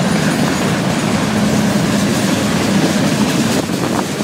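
Freight train cars rolling past: a steady rumble and rattle of steel wheels on the rails.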